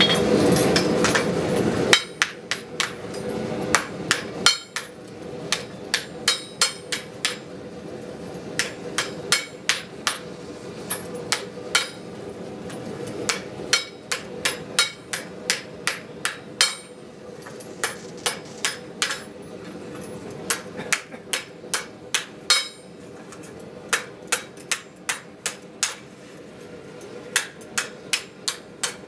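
Hand hammer striking a hot forged steel frying pan held with tongs on a round block, in quick runs of several ringing blows with short pauses between, while the pan is dished. A louder rushing noise fills the first two seconds before the hammering starts.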